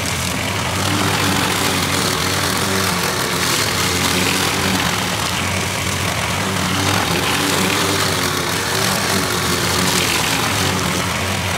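Walk-behind rotary lawn mower with a rear grass bag, its small engine running steadily while it is pushed back and forth cutting long grass.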